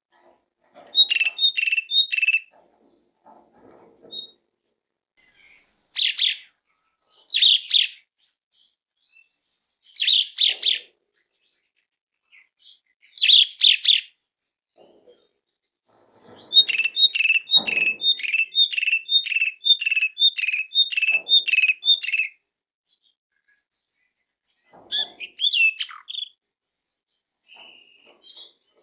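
Asian pied starling (jalak suren) calling loudly: harsh bursts of chatter, a quick run of four notes about a second in, and a long steady string of about a dozen repeated two-pitch notes about two-thirds through, then a short sliding note near the end.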